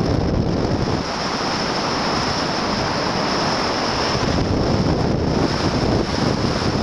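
Wind rushing over the microphone of a camcorder mounted on a hang glider in flight: a loud, steady rush of wind noise.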